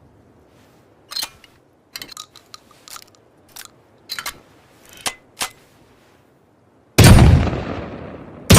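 Sound effect of a makeshift double-barrel shotgun: a run of short metallic clicks and clacks, then two loud shots about a second and a half apart near the end, each trailing off in a long echoing decay.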